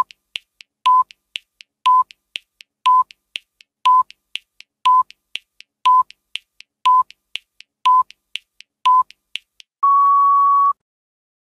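Countdown timer sound effect: a short beep once a second, ten times, with fainter ticks in between, ending in a longer, slightly higher beep as the count reaches zero.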